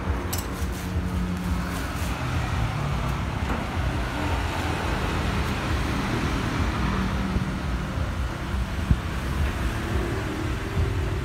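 Steady rumble of road traffic, with a few light clicks in the first second and a half and one sharp knock about nine seconds in.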